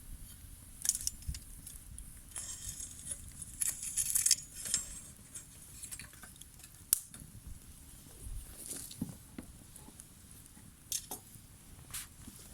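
Wood fire crackling, with irregular sharp pops and snaps, a few of them louder, over a faint hiss.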